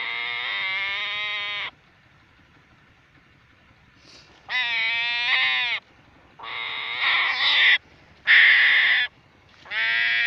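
An animal's loud, wavering cries, five in a row, each lasting about a second, with short quiet gaps between them.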